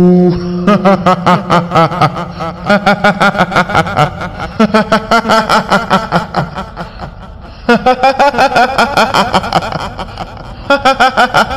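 A woman's rapid "hihihi" laughter, the cackle of the kuntilanak ghost, going in runs of quick pulses with short breaks between the runs.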